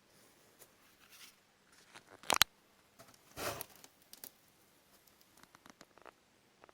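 Handling noises in a small room: a sharp knock or click about two seconds in, a short rustle about a second later, and a few faint small clicks near the end.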